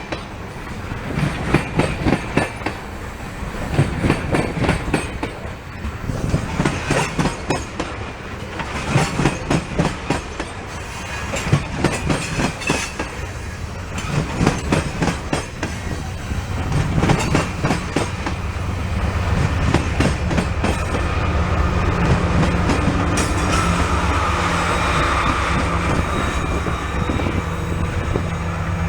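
Loaded ethanol tank cars of a freight train rolling past, their wheels clacking in groups over the rail joints. About two-thirds of the way in, the clacks give way to a steadier, louder low rumble with a steady hum.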